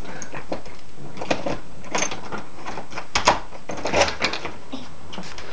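A string of irregular clicks and knocks from household handling, loudest and most clustered about three to four seconds in.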